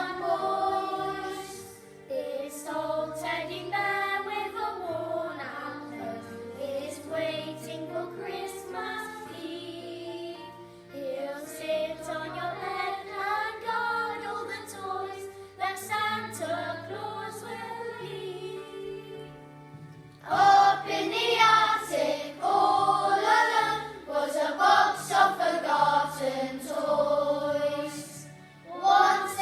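Children's choir singing a Christmas song in unison over instrumental accompaniment, with the sound growing louder about two-thirds of the way through.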